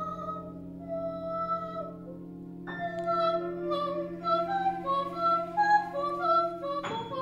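Free improvisation for female voice, flute, cello and piano: low notes held steadily beneath long high held notes. About three seconds in, a busier line of short notes enters, stepping quickly up and down over the held notes.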